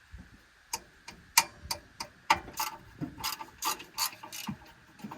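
Hand ratchet wrench clicking in short, irregular strokes while turning out 12 mm bolts, with sharp metallic clicks.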